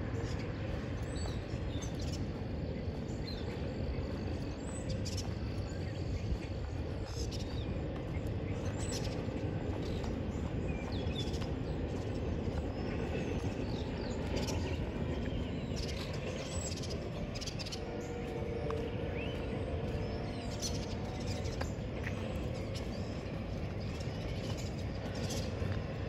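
Birds chirping over a steady low rumble, with a few faint steady tones coming in about two-thirds of the way through.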